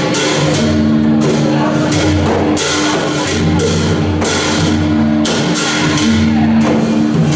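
Traditional Thai percussion ensemble of barrel drum, hanging gongs and hand cymbals playing a steady beat. Cymbal clashes fall about every two-thirds of a second over sustained ringing gong tones.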